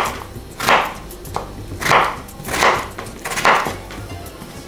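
Kitchen knife cutting a peeled raw potato into cubes: about five uneven strokes, each a short slicing hiss, under a second apart.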